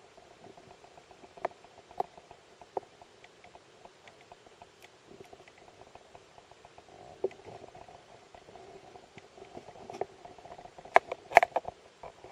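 Underwater sound of a scuba diver in a narrow cave: a steady hum with scattered clicks and knocks from the diver's gear, and a quick cluster of louder clicks near the end.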